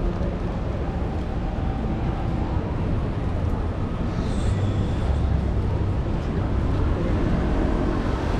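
City street traffic noise: a steady low rumble of vehicles, swelling as one passes about halfway through, with a brief high squeal around the same moment.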